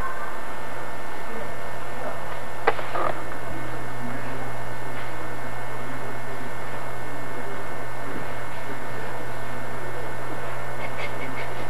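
Steady low mains hum with an even hiss, typical of an old camcorder tape recording, with a couple of short clicks about three seconds in.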